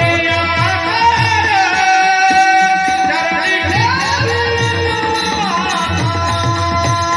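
Devotional kirtan singing: a male voice holds long notes with slow glides and ornaments, accompanied by a hand drum beating a steady rhythm.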